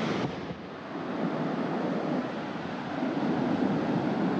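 Ocean surf breaking and washing over rocks, with wind rumbling on the microphone. The rush dips briefly about half a second in, then builds up again and grows louder toward the end.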